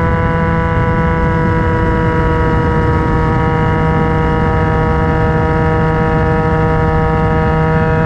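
Yamaha MT-09 crossplane three-cylinder engine running through a Black Widow aftermarket exhaust, heard close to the silencer while riding at steady part throttle; the note holds and sags slightly in pitch, over a low rush of wind and road noise.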